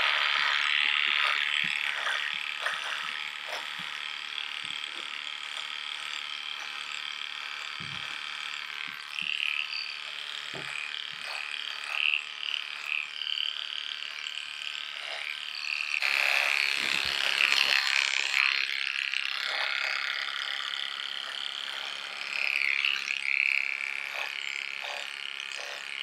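Electric horse clippers buzzing steadily while cutting through thick leg hair, the tone wavering as the blades bite into the coat, louder for a couple of seconds past the middle, with a few light knocks.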